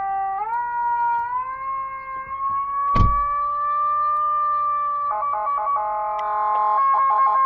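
Emergency-vehicle siren sounding a manually run mechanical-siren tone: a steady wail that climbs slowly in pitch over the first second or so and then holds high. A single sharp knock comes about three seconds in. From about five seconds in the tone is twice chopped rapidly on and off.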